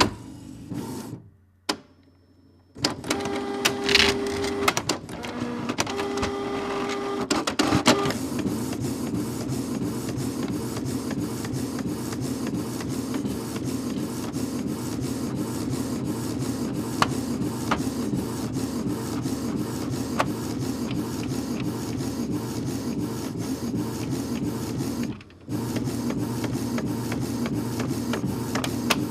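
Inkjet printer printing a photo. After a few short clicks, the paper-feed mechanism whirs and clicks as the sheet is drawn in. The print head then shuttles back and forth in a fast, steady rhythm, stops briefly near the end, and carries on.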